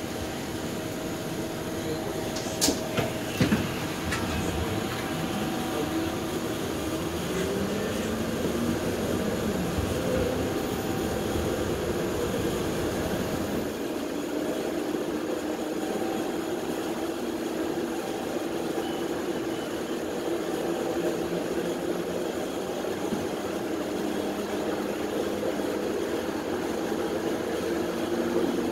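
Toronto streetcar under way: a few sharp knocks about three seconds in, then the electric traction motor whine rising in pitch as the car pulls away and picks up speed. It then settles into a steady hum over continuous wheel-on-rail running noise.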